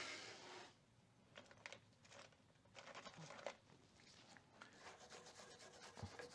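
Near silence, with faint scrapes and light clicks of a steel trailing arm being handled in a bench vise. A noise left over from the cordless drill's wire wheel fades out within the first half-second.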